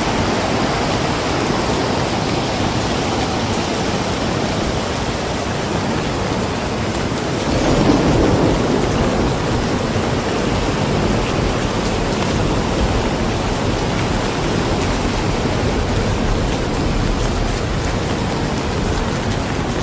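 Heavy rain pouring down steadily, mixed with the rush of a flooded river. About eight seconds in the noise swells for a couple of seconds with a deeper rumble.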